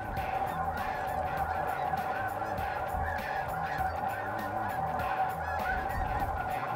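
A large flock of snow geese calling, a steady din of many overlapping honks.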